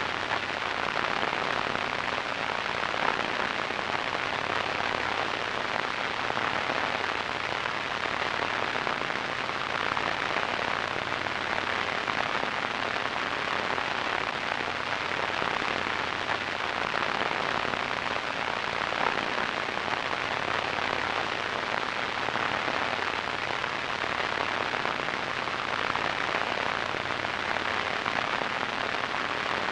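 Radio static: a steady, even hiss with a fine crackle, strongest in the middle and upper range, unchanging throughout.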